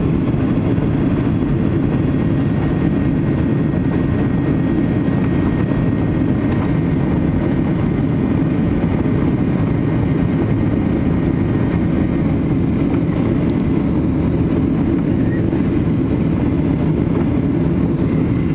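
Steady cabin noise of a Boeing 737-800 climbing out after takeoff, heard from a seat over the wing: its CFM56-7B turbofans at climb power and the rush of air past the fuselage make a dense low rumble with a faint steady high whine.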